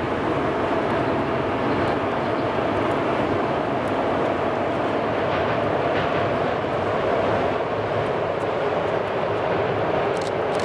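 Pesa Gama (EU160) electric locomotive hauling a passenger train past, a steady rolling rumble and hum whose pitch drifts slightly lower as it goes by. A few sharp clicks come near the end.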